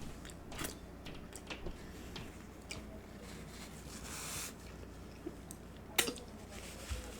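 A person chewing and eating at close range, with scattered small wet mouth clicks, a brief rustle about four seconds in and a sharper click about six seconds in.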